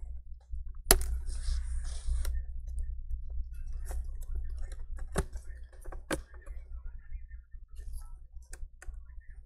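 Gloved hands handling a laptop's plastic lid and casing: scattered clicks and taps, a sharper click about a second in, and a brief scraping rub just after it, over a steady low hum.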